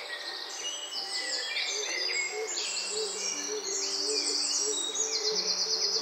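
Several songbirds singing and calling over one another, a dense run of high chirps and trills. Low, sustained background-music notes sit underneath and step in pitch every second or so.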